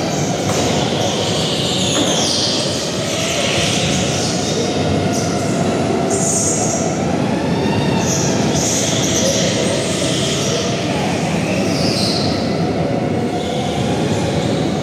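Go-karts lapping the track: a steady engine drone with a wavering tone, broken every second or two by short, high tyre squeals.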